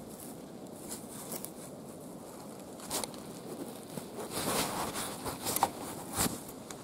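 Rustling and scuffing of clothing rubbing against the camera as it is handled, with a few sharper knocks and scrapes, louder and busier in the second half.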